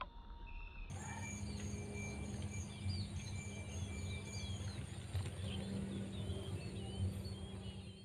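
Outdoor tree-canopy ambience: many small birds chirping and calling in quick short notes, over a steady high-pitched insect-like whine and a low hum, starting about a second in.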